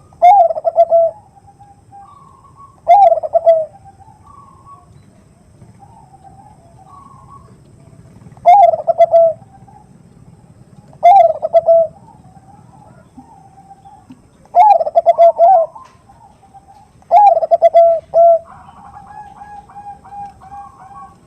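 Zebra dove (perkutut) cooing: six loud, short phrases of rapid coo notes repeat every few seconds. Fainter answering coos from other doves sound between them.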